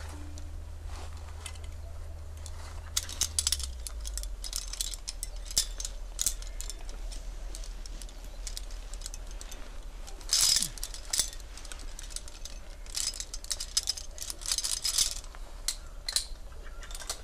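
Metal climbing hardware (carabiners and gear on a climber's harness) clinking and jangling in irregular bursts as he moves up snowy rock, the loudest about ten seconds in. A steady low hum underneath.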